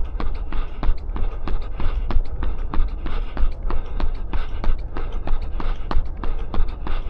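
A runner's footfalls at a fast, even cadence, about three strikes a second, over a steady low rumble.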